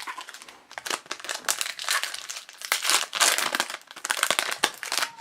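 Foil wrapper of a hockey card pack crinkling as it is torn open and handled, in quick irregular rustles.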